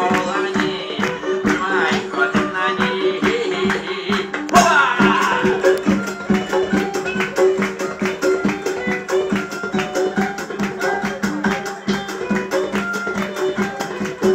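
A live folk band playing: hammered dulcimer notes and a frame drum with rattling percussion keep a quick, steady beat over a low drone. A voice is heard over the music in the first few seconds.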